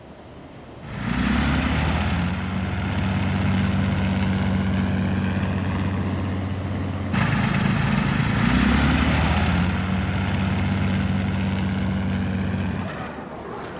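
Propeller aircraft's piston engine running at a steady drone. It comes in about a second in, changes abruptly about halfway through, and fades out near the end.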